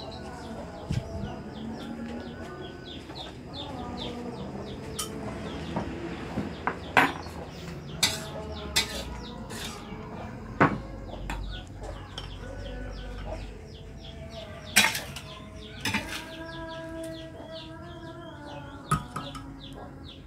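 Metal spatula knocking and scraping against a steel wok as stir-fried vegetables are stirred and scooped out, with sharp clanks every second or two.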